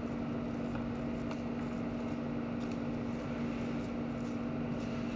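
Steady low machine hum in a butcher's workroom, with a few faint clicks and scrapes as a boning knife cuts meat away from beef rib bones.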